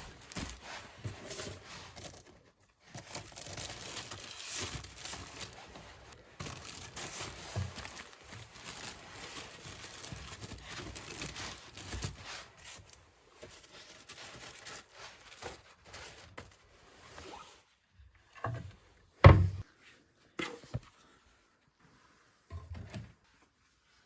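Plastic bags and packaging rustling and crinkling as groceries are handled. Later come a few separate knocks, the loudest a sharp thud about 19 seconds in, like items being set down.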